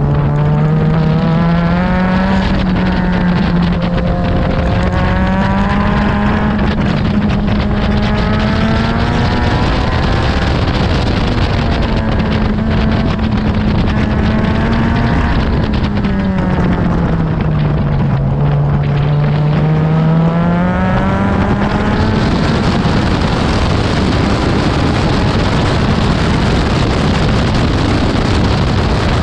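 Honda K24 inline-four engine of an Exocet running hard at high revs, its pitch climbing and holding, then dipping and climbing again about two-thirds of the way through. Wind rushes on the microphone throughout, and near the end the engine tone fades under the wind noise.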